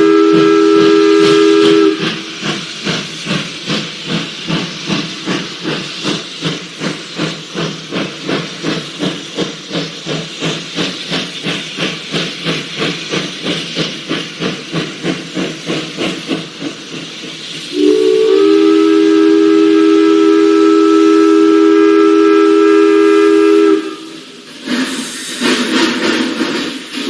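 Steam locomotive: a multi-tone steam whistle sounding, then steady rhythmic exhaust chuffing at about three beats a second, then a second long whistle blast that cuts off a few seconds before the end.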